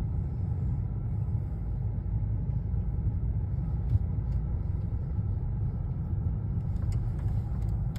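Car engine and tyres rumbling steadily, heard from inside the cabin while driving on snow, with a few faint clicks about halfway and near the end.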